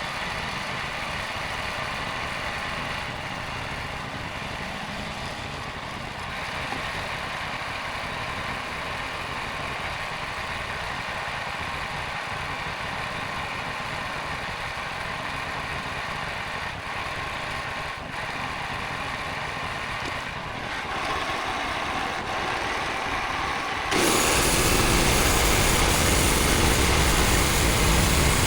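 A small engine running steadily; about 24 seconds in the sound becomes suddenly louder and fuller.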